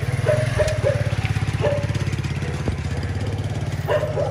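A small engine idling with a rapid, even pulse, with a few short high squeaks over it.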